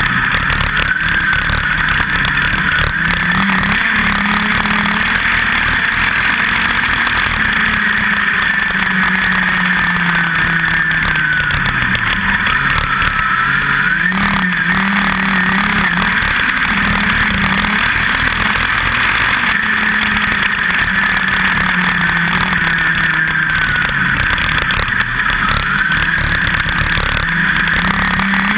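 USAC midget race car's four-cylinder engine running at high revs, picked up by a camera mounted on the car. Twice the pitch drops and then climbs back, as the driver lifts for the turns and gets back on the throttle.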